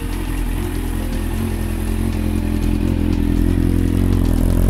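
Yamaha FZS1000 Fazer's inline-four engine idling steadily through a Scorpion slip-on exhaust with the baffle removed. It grows slowly louder towards the end.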